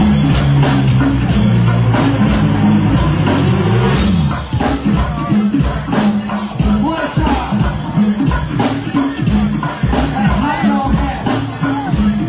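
Live go-go band playing over a PA. It opens with held low notes, and about four seconds in it breaks into a syncopated drum, conga and bass groove, heard through a phone microphone in the crowd.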